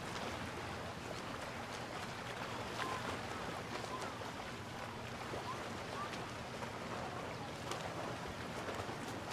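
Steady seaside ambience: an even wash of sea and wind with a low hum underneath and faint, scattered short sounds of distant people.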